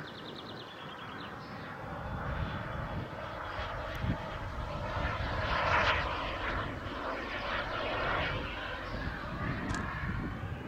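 Turbine-powered Yak-130 giant-scale RC model jet flying past overhead: a steady jet rush that swells to its loudest about six seconds in, then eases off.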